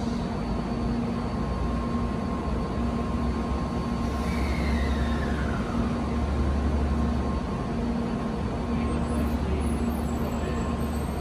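Shinkansen train pulling slowly out of the platform, a steady low rumble with a faint tone that falls in pitch about four seconds in.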